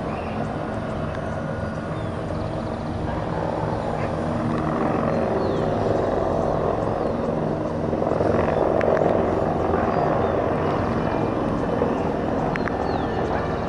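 Several light military turbine helicopters flying past in formation: a steady rotor and turbine sound that grows louder about a third of the way in, is loudest a little past the middle, then eases slightly near the end.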